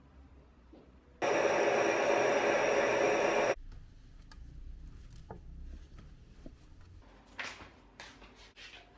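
A loud, steady mechanical whir with a whine in it starts about a second in and cuts off abruptly a couple of seconds later. After it come a few light knocks, more of them near the end.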